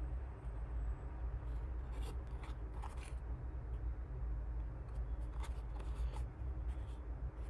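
Small cardboard toy-car box being handled and turned over in the fingers: scattered light taps, rubs and scrapes of fingertips on the card over a steady low hum.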